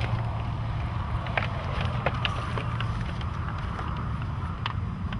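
Wind buffeting the microphone with a steady low rumble. Over it come scattered light snaps and crackles of dry brush and twigs as someone pushes through undergrowth.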